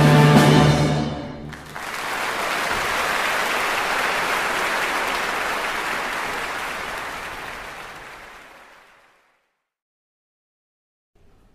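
Orchestral soundtrack music cuts off about two seconds in, followed by applause that fades away gradually over several seconds into silence.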